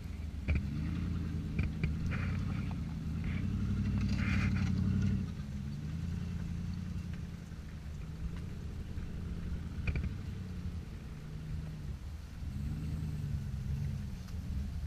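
Jeep Grand Cherokee engine working under load as it crawls up a steep rutted dirt climb, its revs rising and falling again and again. It is loudest for the first five seconds, then eases off, with a sharp knock about ten seconds in.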